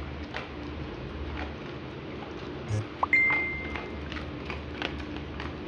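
Dog eating dry kibble from a plastic bowl: scattered crunches and clicks of kibble against the bowl, over a steady low hum. About three seconds in, a brief knock and then a short high steady tone, the loudest sound.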